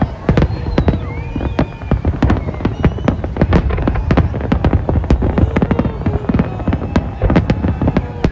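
Large aerial fireworks display: shells bursting in a dense, rapid string of sharp bangs and crackles, several a second, over a low rumble.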